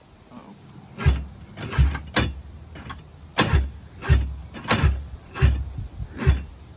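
1995 Sea-Doo SPX two-stroke engine being cranked over on its electric starter, turning in about eight heavy, irregular chugs without catching. It labours because its cylinders hold oil, which the owner calls hydrolocking with oil.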